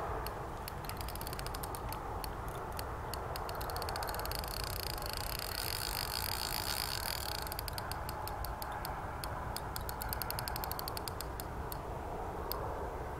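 Fishing reel drag ticking as a hard-fighting hooked fish pulls line off. The quick clicks run together into a steady buzz for a few seconds in the middle, then break back into separate ticks.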